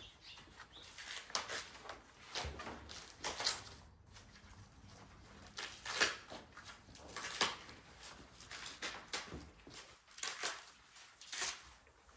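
Pages of a paper instruction manual being turned and handled: a run of irregular rustles and light handling noises, some louder than others.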